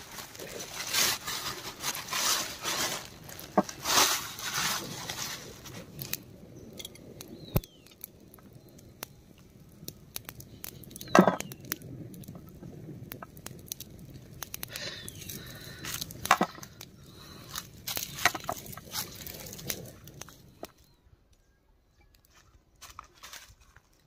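Irregular crackling, rustling and sharp knocks of cooking pots and firewood being handled at a wood-fire hearth, with one louder knock near the middle; the sounds stop for a couple of seconds near the end.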